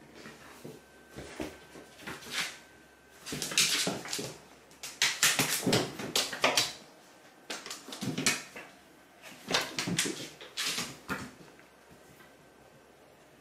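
Cats scrambling and pouncing on a hard floor: paws skidding, thudding and scratching in several quick rushes, loudest in the middle.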